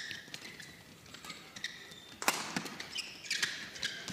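Badminton rally: rackets hitting the shuttlecock in quick, sharp hits, with players' shoes squeaking on the court. The loudest hit comes a little past halfway.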